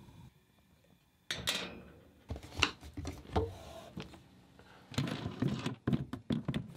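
After about a second of near silence, a string of clicks, knocks and rattles as a sailboat's overhead cabin hatch is pushed open and the latches of a porthole are undone. The knocks come thicker toward the end.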